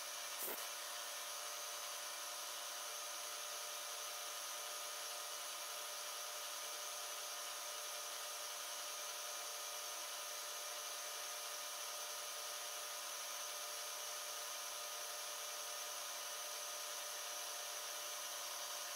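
Milling machine spindle running steadily while a corner-rounding cutter radiuses the edge of a small brass part: an even, high-pitched whine made of several fixed tones. A single short click comes about half a second in.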